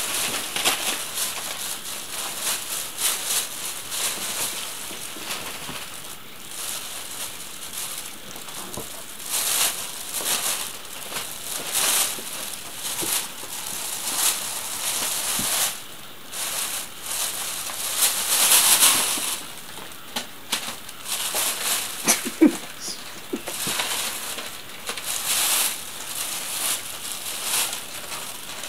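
Thin plastic shopping bag crinkling and rustling in irregular bursts as a cat caught in it moves about and tugs at it.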